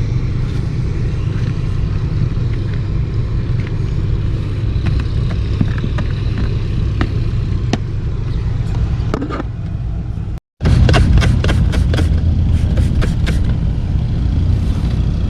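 A steady low rumble with scattered light clicks and taps. The sound cuts out for a moment about ten seconds in, then comes back with a quick run of taps.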